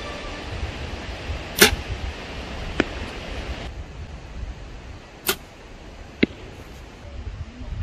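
Two compound-bow shots: each a sharp crack of the string release, followed about a second later by a fainter, distant smack of the arrow striking the 60-yard target. The first shot takes longer to reach the target than the second.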